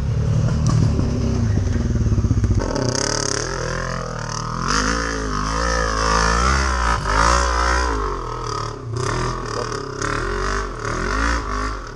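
ATV engine revving unevenly under load, its pitch rising and falling with the throttle as it climbs a steep dirt hill. For the first few seconds a close engine idles with a steady low hum.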